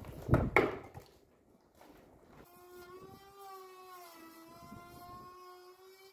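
Two loud knocks, then a small electric power tool's motor running with a steady whine for about four seconds. Its pitch dips briefly partway through, as if under load.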